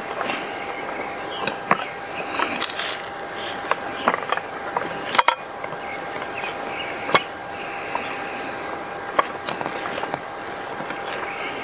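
Wooden bowl pressed and twisted rim-down through slices of bread on a wooden board, giving scattered knocks and scrapes, with a sharp knock about five seconds in. Behind it an insect chirps in short regular pulses, a little more than one a second.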